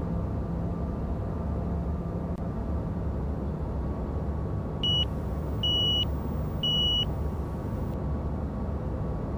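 Steady cockpit noise of a Gulfstream G200 twin-turbofan business jet in the climb: a low hum of engines and airflow. About five seconds in, three short high electronic beeps sound, about a second apart.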